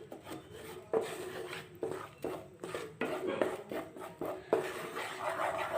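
A spoon stirring and scraping besan (gram flour) roasting in ghee in a pan, in repeated strokes about two a second. The flour is being kept moving so it browns without burning.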